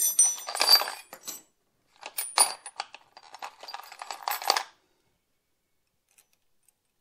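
Metal clinking and jingling as a sprocket tab washer is handled and fitted onto the splined front sprocket shaft of a motorcycle, in two spells of clinks, the second ending a little past halfway.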